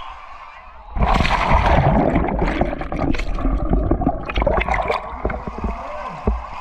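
A splash about a second in, then water churning and bubbling as heard with the microphone underwater in a swimming pool, full of many small clicks, easing off near the end.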